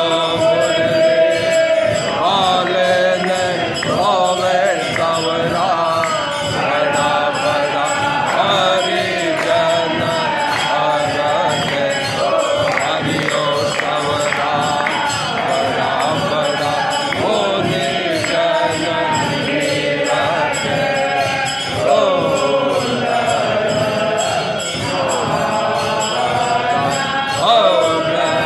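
Hindu devotional aarti singing: voices chanting a hymn-like melody with musical accompaniment, going on without a break.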